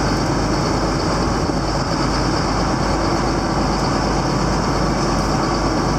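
A vehicle engine running steadily at constant speed, with a steady high hiss over a low rumble.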